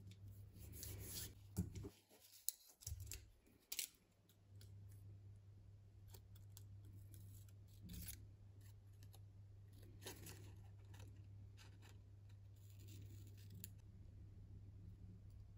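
Small scissors snipping thin paper word-label strips, with a few sharp snips in the first few seconds and soft paper rustling and handling later, over a faint steady low hum.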